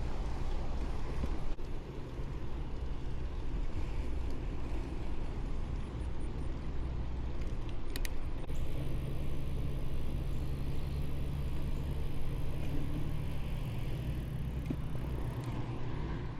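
Steady low hum of a motor vehicle with road noise, its pitch shifting slightly about nine seconds in; a single sharp click about eight seconds in.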